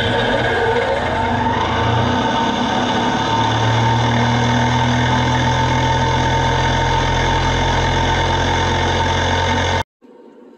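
Test rig of 3D printed PLA spur gears driven by an electric motor, spinning at high speed: a loud, steady whine of meshing gears and motor made of many tones, with one pitch sliding upward over the first two seconds. It cuts off suddenly near the end, leaving a much quieter hum.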